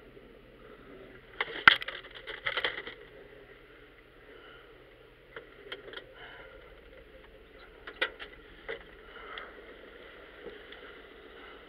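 A quick cluster of sharp knocks and rattles about a second and a half in, followed by scattered single clicks over a faint steady low hum.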